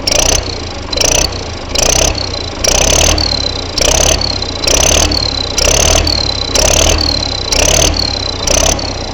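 YuMZ-6 tractor's diesel engine blipped about ten times, roughly once a second, over its idle. Each blip brings a high whistle that drops a little in pitch as the revs fall: an imitation of a turbocharger whistle on an engine that has no turbocharger.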